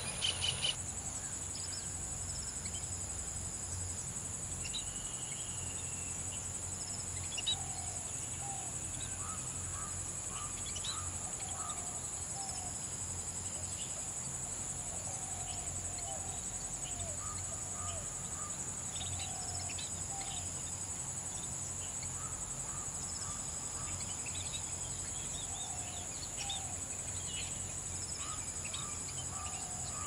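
Steady high-pitched insect trill, with short bird chirps and calls scattered over it.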